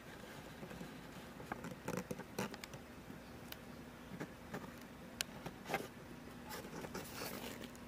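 Faint room tone with scattered light clicks and soft rustles, a few sharper ticks in the second half, and a low steady hum coming in about halfway through.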